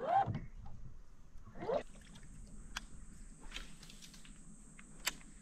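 Water sloshing and gurgling around a camera held at the water's surface. About two seconds in, a steady high-pitched whine begins, with a few sharp clicks.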